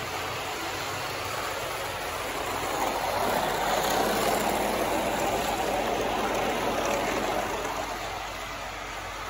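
Motorized cardboard model train running on cardboard track: the small motor and wheels give a steady noisy run that grows louder as the train passes close, about three seconds in, then fades again.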